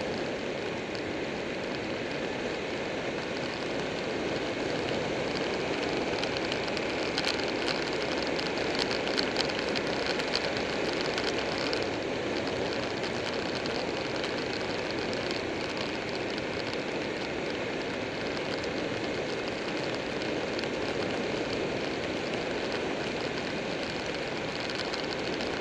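Steady rush of wind and road noise on the microphone of a camera riding on a motorcycle at road speed, with a spell of crackling wind buffeting about a third of the way in.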